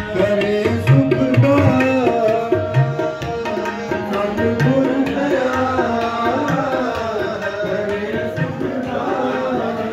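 Sikh devotional kirtan: a voice singing a hymn over held melodic tones, with tabla drums keeping a steady beat.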